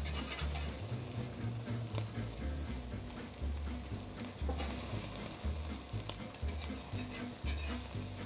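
Marinated salmon sizzling on a hot gas grill, with a metal spatula scraping and clicking against the grates as the pieces are lifted off.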